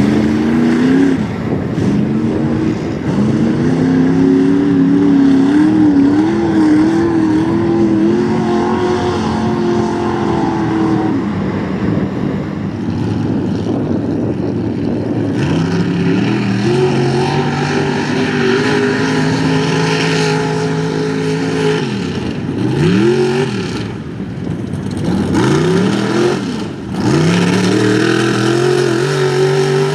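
Off-road mud bog truck engine held at high revs, its pitch wavering under load; late on the revs drop off and climb back sharply a couple of times.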